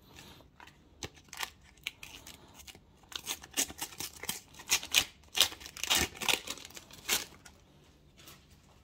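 Paper sticker packets being torn open by hand and the stickers handled: a quick run of crackling, tearing and paper clicks, busiest in the middle and dying away about seven seconds in.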